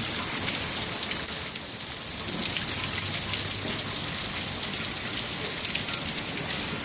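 Heavy rain pouring down steadily, a dense hiss of drops striking surfaces, easing slightly for a moment about two seconds in.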